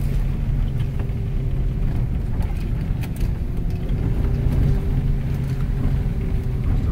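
Cabin sound of a second-generation Cadillac Escalade's V8 driving on a wet gravel road: a steady low engine and tyre hum with a held drone, and a few light ticks.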